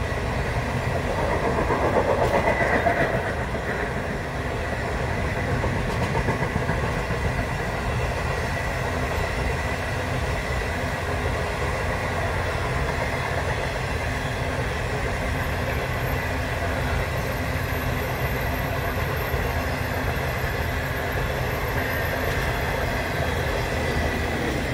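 The Ghan's stainless-steel passenger carriages rolling past over a rail bridge: a steady rumble of wheels on the rails, a little louder about two to three seconds in.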